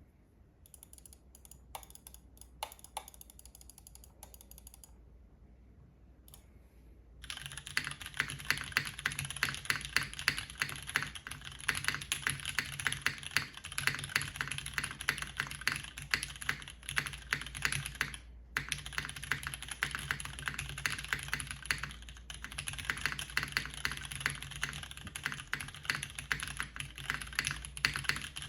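Typing on a top-mounted JTD Ovinnik tenkeyless mechanical keyboard with MX Purple switches, a 5052 aluminium plate and GMK ABS keycaps. A few scattered keystrokes at first, then fast continuous typing from about seven seconds in, broken by a brief pause near two-thirds of the way through.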